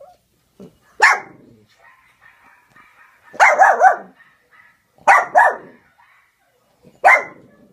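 A small dog barking at dogs in a video on a laptop screen: about seven barks in groups, one bark, then a quick run of three, then two, then one more.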